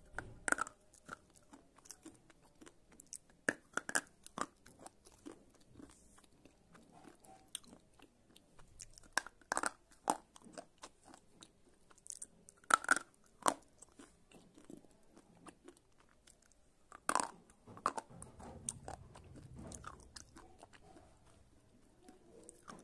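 White slate pencils being bitten off and chewed close to the microphone. Sharp snapping crunches come in clusters every few seconds, the loudest just past halfway, with softer gritty chewing in between.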